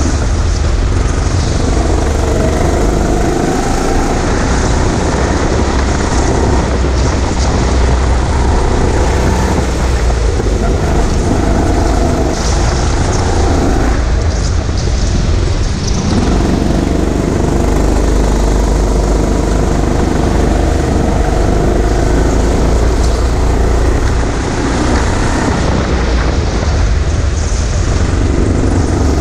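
Go-kart motor running at speed, heard from on board the kart: a steady low rumble whose pitch rises and falls as the kart speeds up and slows through the corners, dipping briefly about halfway through.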